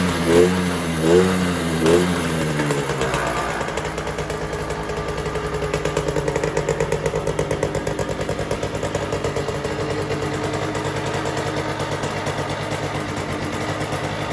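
Garelli Formuno Road moped's 50 cc two-stroke engine: the throttle is blipped a few times in the first couple of seconds, each rev rising and dropping back. It then settles into a steady idle.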